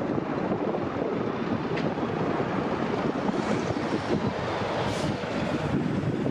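Steady noise of a jet airliner's engines, with wind buffeting the microphone.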